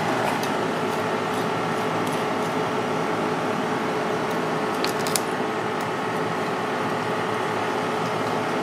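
Steady hum of kitchen ventilation, with a kitchen knife working through a fish head on a plastic cutting board and a few sharp clicks about five seconds in.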